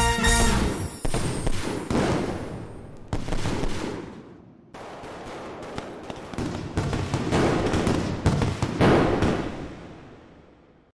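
Fireworks going off: a string of sharp bangs, each trailing a rumbling echo, thinning out and fading away to nothing near the end.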